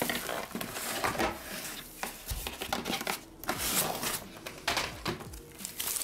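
Plastic bubble wrap crinkling and rustling in irregular crackly bursts as it is handled around a keyboard being lifted out of its box.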